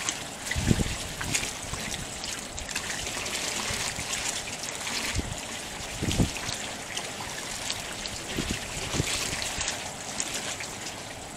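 Water trickling and lapping steadily, with a few dull thumps, one about a second in and one near the middle.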